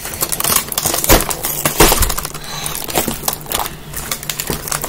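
Cardboard box and plastic blister packaging being torn and pulled apart by hand: irregular crackling, ripping and crinkling.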